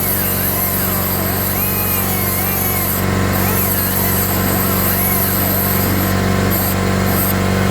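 Central Pneumatic 1/8" mini air die grinder running at speed with a high hissing whine, over a steady low hum. The whine cuts out briefly about three seconds in and several times near the end as the trigger is let off.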